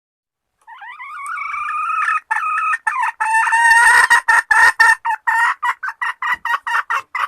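Junglefowl hen giving a mating-solicitation call: a drawn-out wavering call for about a second and a half, then a rapid run of short, loud clucks, about three to four a second, that stops abruptly.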